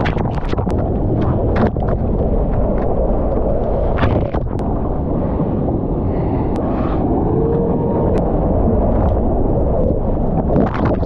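Breaking surf and churning water heard on a GoPro action camera's microphone: a loud, steady low rumble of rushing water, broken by many sharp crackles and pops of water splashing against the camera.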